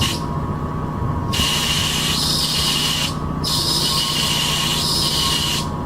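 Car power steering pump whining over the running engine, broken twice by a loud hissing squeal, each lasting a second or two, as the wheel is turned hard. It is the strain of stiff power steering with rough spots, fresh Energy Release metal conditioner just added to the fluid.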